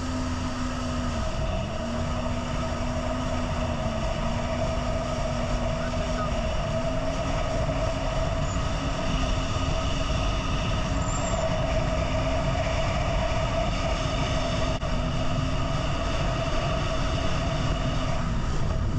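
Jet ski engine running at speed, its pitch climbing as it gets going, then holding steady with a few brief dips in the first several seconds, over a constant rushing noise of water and wind.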